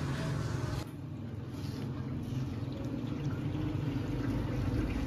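Water running steadily into a large plastic water bottle from the tap of a water filtration plant, starting about a second in.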